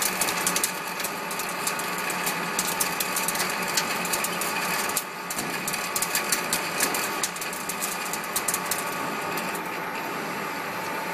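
Metal lathe running as a boring bar cuts the bore of a large disc-shaped workpiece: a steady machine hum with a rapid, irregular crackle of fine ticks from the cut, which thins out about nine seconds in.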